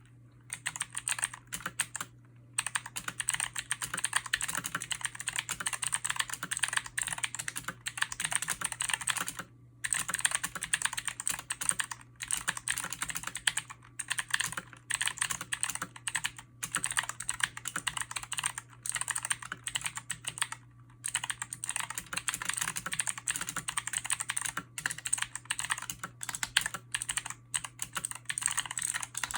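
HyperX Alloy Origins mechanical keyboard with clicky HyperX Blue switches and ABS keycaps being typed on in fast, dense runs of key clicks, broken by a few brief pauses.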